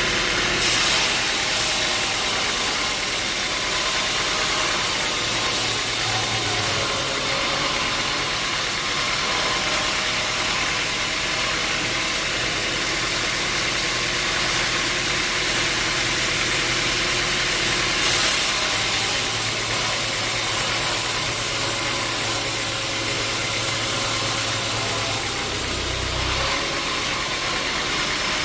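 Sawmill machinery running steadily with a low hum, with two stretches of added high hiss about six and eight seconds long.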